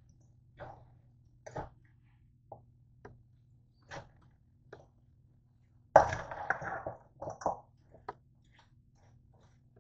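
Metal tongs tossing chopped salad and chicken in a stainless steel bowl: scattered light clinks and scrapes of metal on metal, with a louder burst of clattering and rustling about six seconds in.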